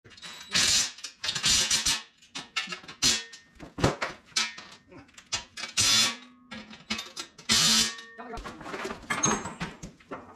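Irregular clattering and rustling as metal mixer parts and cardboard packaging are handled during assembly of a concrete mixer cart.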